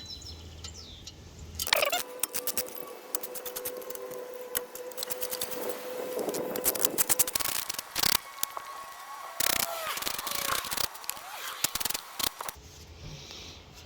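Hand tools undoing the small 10 mm bolts of a brake dust shield: irregular runs of sharp metal clicks with scraping and rubbing, starting about two seconds in and stopping shortly before the end.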